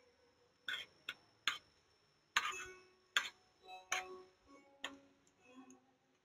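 Chopsticks tapping and scraping against a small metal pan while chopped green onions are stirred in it: about seven sharp clicks at irregular intervals.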